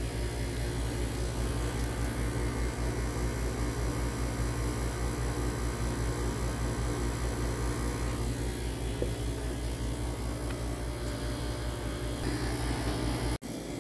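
Steady low machine hum with a fast, even throb. It drops out for an instant near the end.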